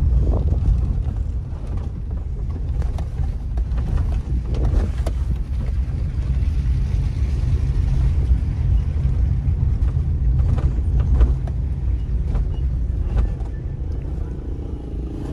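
Suzuki Cultus heard from inside its cabin while driving on a broken road: a steady low engine and road rumble, with a few short knocks and rattles from bumps about a third of the way in and again about two-thirds in.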